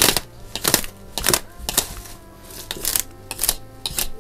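Clear plastic wrap being pulled and torn off a cardboard box, a series of crackling rips roughly every half second, over faint background music.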